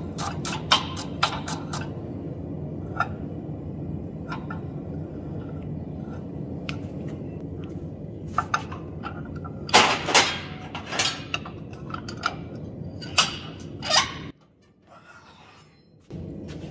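Quick strokes of a wire brush scrubbing scale off a hot, freshly twisted steel bar, about four a second for the first two seconds, over a steady low rumble. Later come several sharp metal clanks and clinks as a hot square bar is set and clamped in a steel bench vise. The sound drops out briefly near the end.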